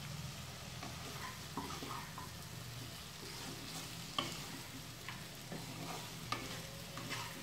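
Boiled jackfruit and potato pieces being stirred into fried masala in a kadhai: a spatula scraping and knocking against the pan, with a few sharp knocks, over a light sizzle of frying.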